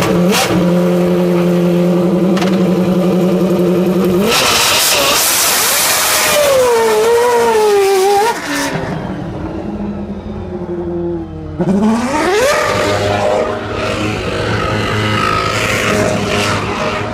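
Single-seater race car engine running at a steady high idle, then revved hard about four seconds in as the rear tyres spin, with a hiss of wheelspin and the revs swinging up and down. The engine drops away around eight seconds, then sweeps up again near twelve seconds and keeps running with tyre noise as the car spins another donut.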